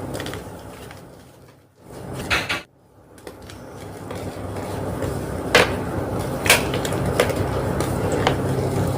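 Homemade gym chalk block being crushed and crumbled by hand, a steady gritty crumbling with a short burst about two seconds in and four sharp cracks in the second half.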